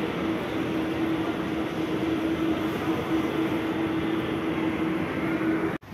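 Busy shopping-mall atrium ambience: a steady hum over a wash of background noise, which cuts off abruptly near the end.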